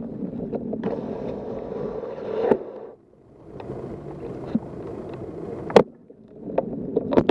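Steady low rumbling noise of a wet city street in the rain, with a few sharp clicks, dropping briefly almost quiet about three seconds in and again about six seconds in.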